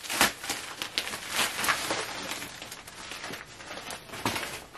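Paper wrapping and a plastic mailer rustling and crinkling as a package is unwrapped by hand, with irregular crackles throughout.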